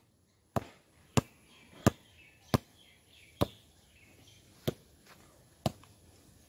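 A hand slapping a football spinning on a pen tip to keep it turning: seven short, sharp slaps about once a second.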